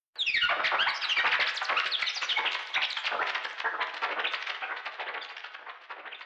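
Radio-tuning sound effect: a sweep falling from high to low, then a fast jumble of whistling pitch glides and crackling static. It starts suddenly and slowly fades away.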